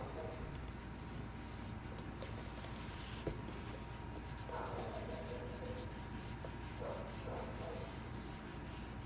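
A cloth pad rubbing over EVA foam in quick, light, repeated strokes, applying shading.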